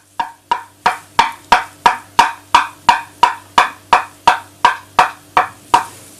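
Steady, evenly paced knocking on wood, about three knocks a second and some eighteen in all, growing a little quieter near the end.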